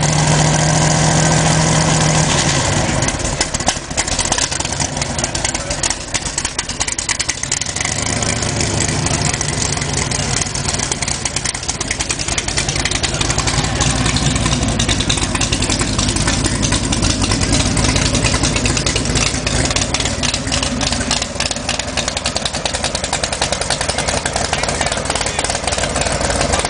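A 1965 Cobra's V8 running, held at higher revs at first, then dropping about three seconds in to a rough, uneven idle. The car is one that hates to idle.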